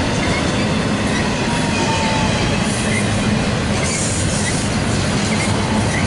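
Double-stack intermodal freight train of well cars loaded with containers rolling past: a steady rumble of steel wheels on rail, with a faint wheel squeal between about one and two seconds in.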